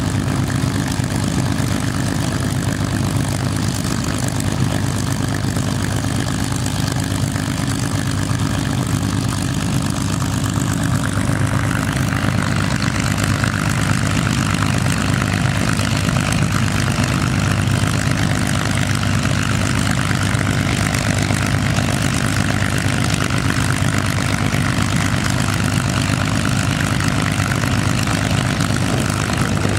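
Merlin V12 piston engines of Spitfire and P-51 Mustang warbirds idling on the ground with propellers turning, a steady deep rumble. About eleven seconds in the sound becomes brighter and hissier.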